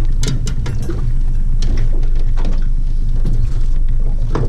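Steady low drone of a small fishing boat's motor while trolling, with scattered clicks and knocks of fishing gear being handled in the aluminium boat.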